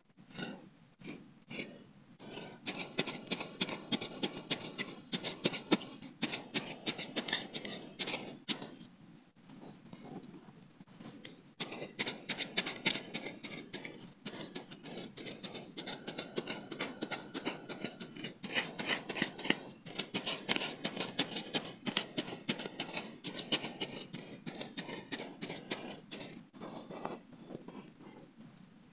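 Machete blade stabbing and scraping repeatedly into dry earth, a fast run of crunching scrapes with a short pause about a third of the way through.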